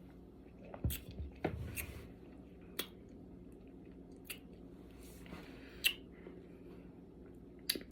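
Quiet drinking and mouth sounds as fruit punch soda is sipped: a couple of swallowing gulps about a second in, then scattered single clicks of lips and tongue.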